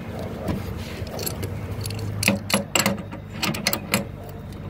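Metal wrench clicking on the brass flare nut as the copper line is tightened onto the air-conditioner outdoor unit's service valve. The clicks come as a quick run, about three or four a second, starting a little before halfway, over a steady low hum.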